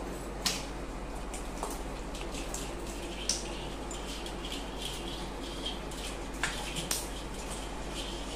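Hands sloshing and splashing in muddy water inside a large metal pot, with scattered small splashes and knocks against the pot.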